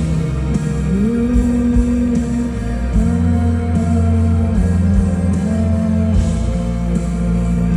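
Live band music, led by guitar over a strong bass, with long held notes.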